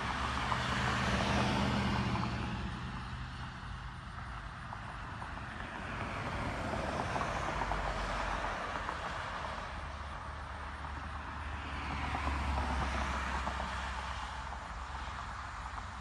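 Road traffic passing on a highway: a pickup truck goes by about a second in with its engine hum and tyre noise, then two more vehicles swell up and fade away.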